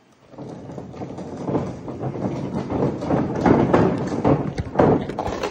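A heavy wheeled case of 1-inch sockets being rolled across a rough concrete floor, its small wheels rumbling and the metal case rattling, with irregular knocks throughout.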